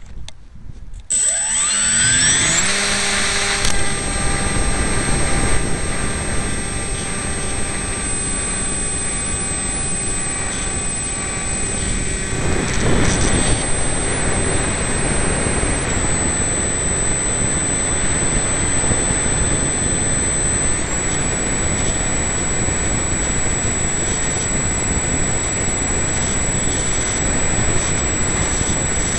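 Model aircraft's electric motor and propeller spinning up with a steeply rising whine about a second in, then running steadily at a high pitch, heard from a camera mounted on the airframe with heavy wind buffeting on the microphone. Past the middle the whine drops in pitch for about five seconds, then rises back to full speed.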